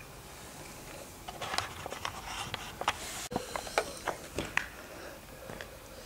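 Faint, irregular clicks and rustles over a low hiss, like clothing or hands moving close to the microphone.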